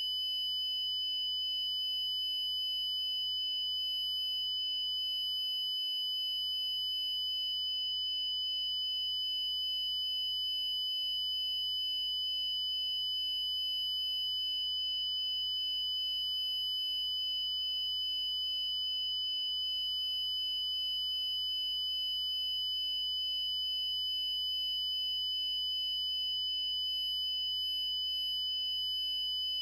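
Emergency Alert System (EAS) frequency sound effect: a steady, unbroken high-pitched electronic sine tone that holds the same pitch and level throughout.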